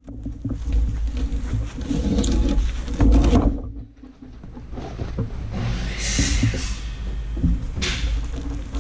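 Wood-Mizer LT35 sawmill's engine running steadily, with clunks and rattles of a pine log being handled on the mill bed. The sound dips briefly a little under four seconds in.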